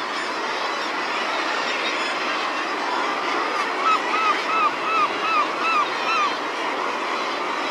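Steady din of a seabird colony of guillemots and razorbills. Around the middle, one bird gives a string of about eight short calls in quick succession, each rising and falling in pitch.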